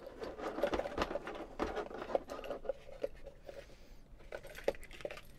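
Handling noise as a cardboard packaging insert is lifted out of a plastic carry case: irregular rustling and scraping with many small clicks and knocks.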